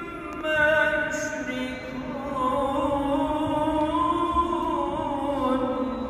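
A solo male voice reciting the Quran in the Turkish mihrabiye style, chanted melodically in long, drawn-out ornamented notes. A new phrase starts about half a second in after a brief breath, and the last held note bends downward near the end.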